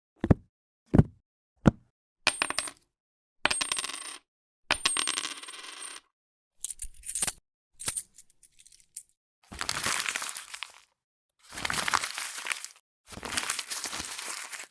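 A string of separate stock sound effects played one after another: three quick thumps that fall in pitch, then three ringing clatters with a steady high tone, a few scattered clicks, and three rasping noisy bursts about a second long each.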